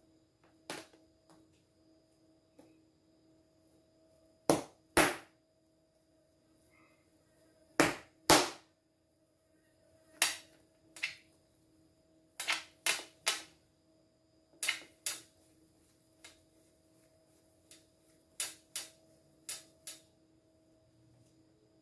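Sharp knocks on a worktable, mostly in pairs or threes a few seconds apart, as bread dough is divided and shaped by hand with a plastic dough scraper. A faint steady hum runs underneath.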